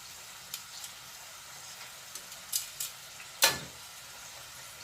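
Cooking utensil clinking against a pot: a few light clicks, then one loud clank about three and a half seconds in, over a faint steady hiss.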